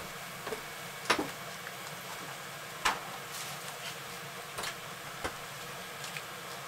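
Bacon sizzling steadily in a cast-iron skillet, with a few sharp clicks and knocks of kitchen handling, the loudest about a second in and again near three seconds.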